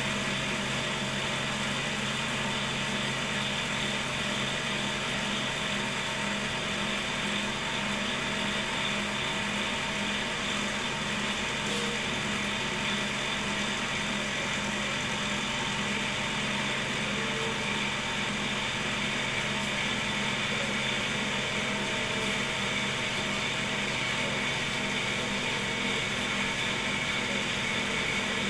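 Electric cotton candy machine with a DC motor, running steadily with an even hum.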